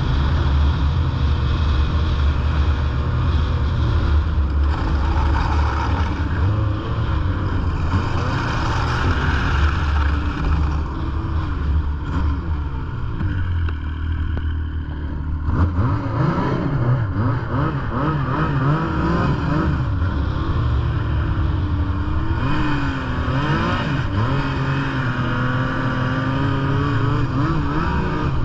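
Snowmobile engine running under way on a snow trail, its pitch rising and falling with the throttle. About halfway through it eases off for a few seconds, then picks up again sharply.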